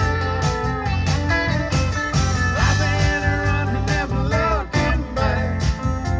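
Live country-rock band playing an instrumental break: a lead guitar solo with notes that slide and bend, over bass, drums and cymbals.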